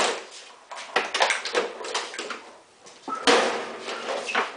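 Knocks and scraping clatter of a walk-behind lawnmower being tipped up onto its handle on a concrete garage floor. The loudest thump comes about three seconds in.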